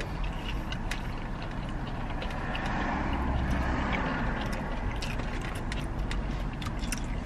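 Steady low rumble of motor vehicles around a parked car, swelling for a second or two about three seconds in as a vehicle goes by. Small clicks of chewing and wrapper handling sit on top.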